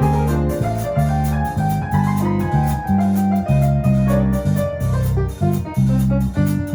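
Latin jazz played on piano: a moving piano line over low bass notes, with light, evenly spaced percussion ticks keeping the beat.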